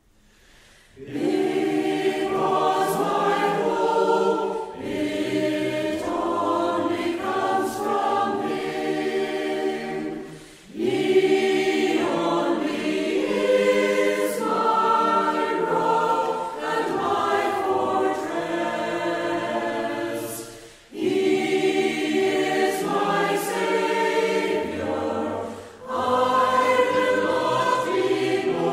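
A group of voices singing a metrical psalm unaccompanied in slow, sustained phrases. The singing starts about a second in, and there are short breaks for breath between lines.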